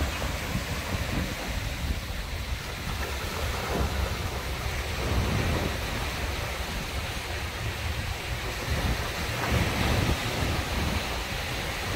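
Sea surf breaking and washing against shoreline boulders, a steady rushing wash, with wind rumbling on the microphone.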